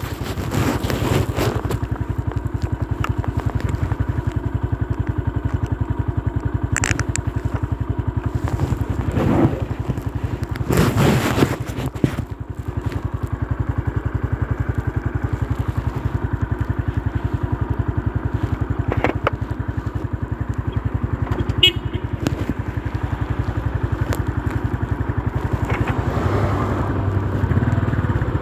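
Motorcycle engine running steadily under way, with wind and road noise; the engine note settles lower near the end as it slows.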